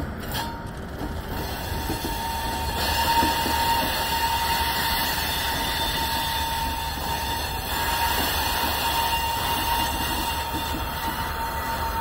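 EMD diesel locomotives and a freight train of loaded rock cars rolling slowly past, with a steady engine and rail rumble. A thin steady wheel squeal runs through it, and there is a single sharp clank near the start.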